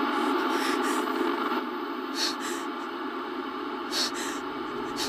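Steady hissing drone from a television showing a distorted, static-filled picture, with a woman's short, frightened breaths about four times over it.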